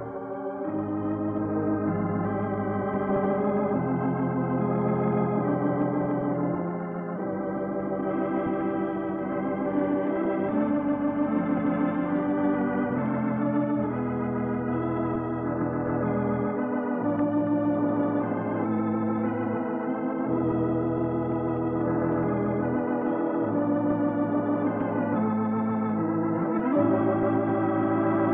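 Organ music playing slow, sustained chords that shift from one to the next, the program's closing theme.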